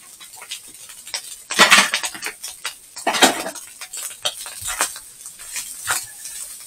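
A cooking utensil scraping and knocking against a large frying pan as the food in it is stirred, with two louder scraping passes about one and a half and three seconds in.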